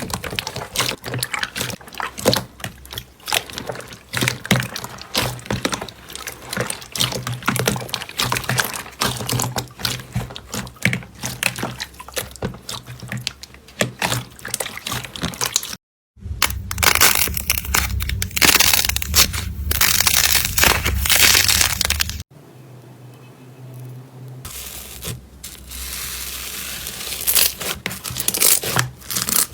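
Slime being squeezed and worked by hand, with dense crackling and popping clicks. The sound changes sharply twice, at cuts between clips: a louder stretch of squishing after the first cut and a quieter one after the second.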